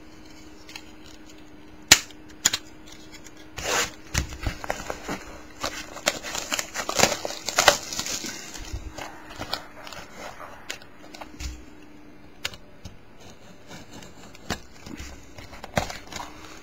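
A sealed trading-card box being opened by hand: crinkling packaging and cardboard with sharp clicks and snaps, the sharpest snap about two seconds in, under a faint steady hum.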